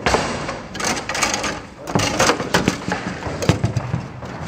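Foosball play: the hard ball knocking against the plastic men and the table walls, with clacks of the rods, in a string of sharp irregular knocks.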